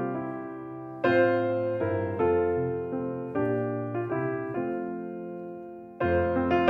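Slow piano music: chords struck and left to fade, a new one every second or so, with a louder, fuller chord near the end.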